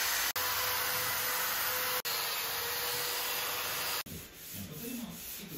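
Electric long-reach drywall sander with a dust-extraction hose, running against a gypsum-board ceiling to sand the filled joints: a loud, steady motor hum under a rushing hiss. It is briefly interrupted twice and cuts off abruptly about four seconds in, leaving quieter sounds.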